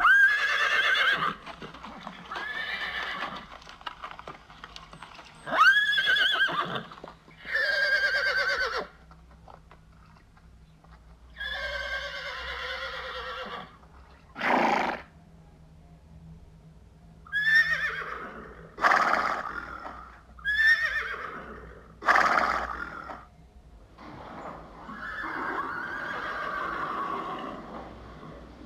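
Horses neighing and whinnying: a series of about ten separate calls with wavering pitch, some long and some short, with brief pauses between them.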